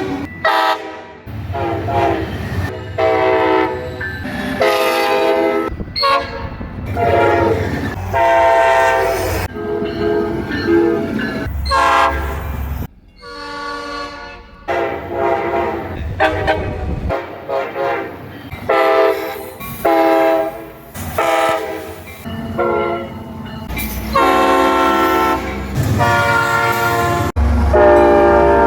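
Locomotive air horns sounding in a rapid string of separate blasts, about one a second, each cut off abruptly and followed by a different horn chord. Low rumble of the trains runs beneath.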